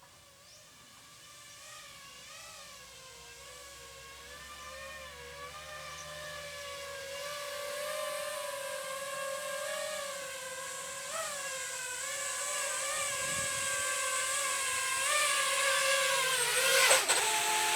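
GEPRC Mark 5 FPV quadcopter's brushless motors and propellers whining, the pitch wavering with throttle and the sound growing steadily louder as the quad comes back home. Near the end the pitch drops and breaks up.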